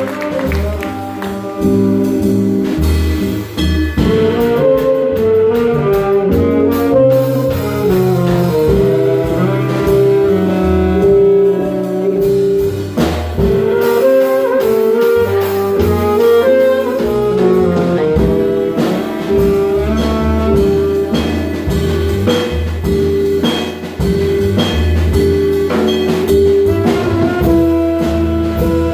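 Live small-group jazz: alto and tenor saxophones playing melodic lines together over upright bass and a drum kit.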